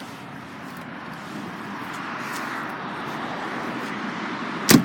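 Road traffic noise, a steady rush that slowly grows louder as a vehicle approaches. A single sharp knock near the end.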